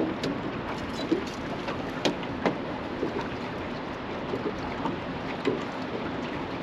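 Choppy river water slapping and washing against the hull of a small fishing boat, with scattered short knocks and taps.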